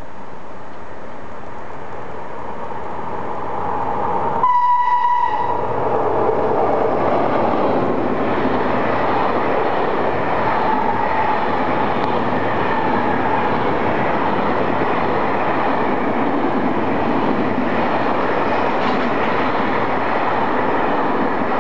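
Container freight train running through a station: its noise builds as it approaches, a short horn blast sounds about four and a half seconds in, then the container wagons roll past with a steady rumble and clatter.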